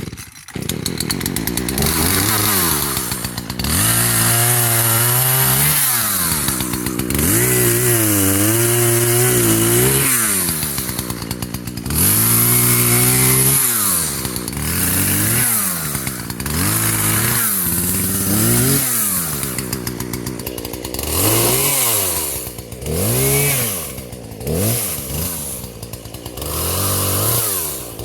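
Small two-stroke chainsaw, a Husqvarna 120, revving up into cuts through limbs and saplings and dropping back to idle between them, over and over. The longer cuts come in the first half, and the bursts are shorter and quicker near the end.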